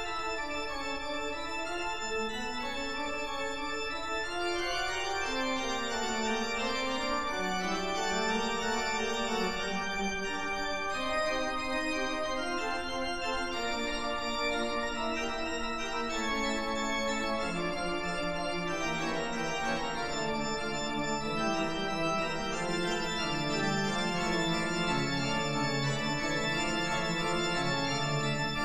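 Background music of held, sustained chords with a slowly moving melody line, steady in loudness throughout.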